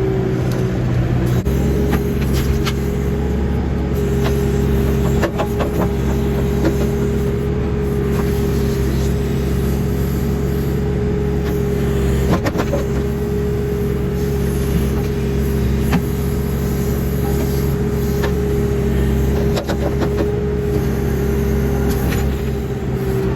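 Backhoe's diesel engine running steadily under load with a steady whine, while it digs, with a few sharp knocks scattered through.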